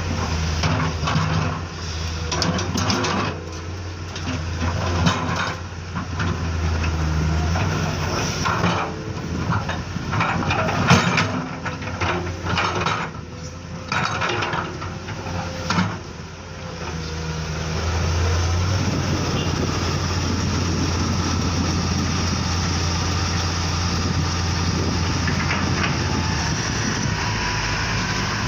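Radio-controlled model construction machines running: a steady low motor hum with many sharp clicks and clatters until about two thirds through, then an even, steady drone.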